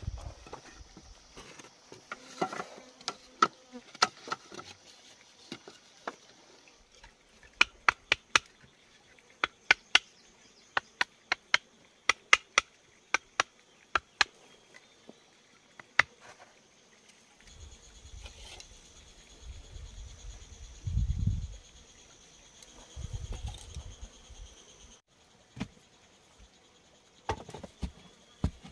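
Bamboo pieces being handled and knocked into place, with a run of sharp hollow clacks, two or three a second, through the middle. Insects buzz steadily in the background. A few dull low thumps come in the second half.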